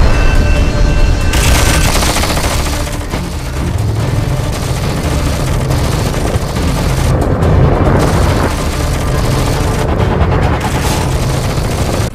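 Action-film sound effects: rapid volleys of gunfire and booming explosions layered over dramatic film-score music.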